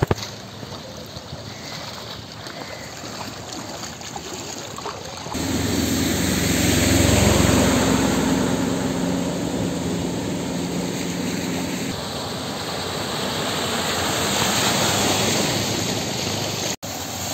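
A vehicle's engine running and water washing as vehicles move through floodwater on a street. About five seconds in, the sound jumps suddenly louder, with a truck's engine running close by for several seconds. Water noise continues after it, broken by a brief dropout near the end.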